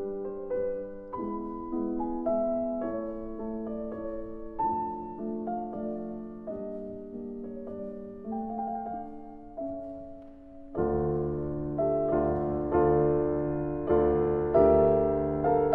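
Background piano music, single sustained notes moving in a slow melody; about eleven seconds in it grows louder and fuller as low bass notes come in.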